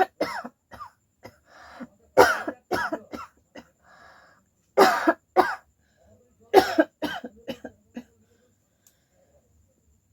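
A woman coughing in about four short fits of several coughs each, with breaths drawn in between. It is a real chesty cough she has, not a put-on one.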